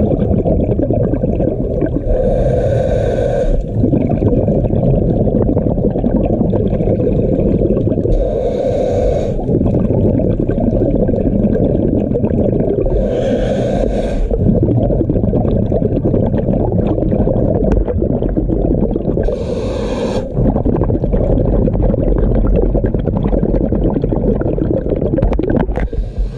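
Scuba diver breathing through a regulator, heard through an underwater camera housing: a steady muffled rumble of water with a hissing breath about every five to six seconds, five in all.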